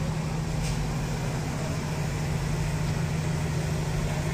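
Steady low hum of an idling engine, running evenly without change.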